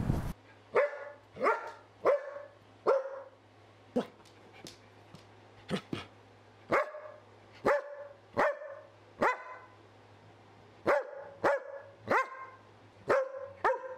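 A dog barking: about sixteen sharp single barks in irregular runs, with a longer pause about two-thirds of the way through.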